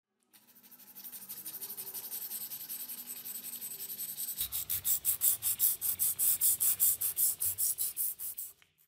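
Sandpaper rubbed quickly back and forth by hand over a wooden knife-handle block, about five strokes a second. The strokes grow louder a little past halfway and stop just before the end.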